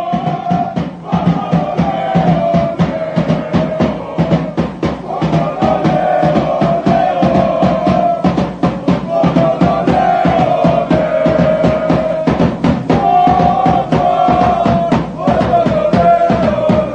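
Music driven by drums: dense, even drum strokes with a bass drum underneath, and a melody in phrases of a second or two running over the beat.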